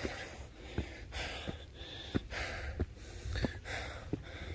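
A tired hiker breathing hard in rhythmic gasps while walking down concrete trail steps, with a footstep landing about every two-thirds of a second.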